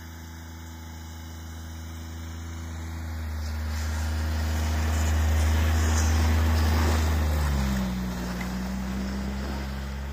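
Snowmobile towing a loaded sled drives up and past, its steady engine note growing louder to a peak about six seconds in. The note then drops in pitch and fades as it moves away.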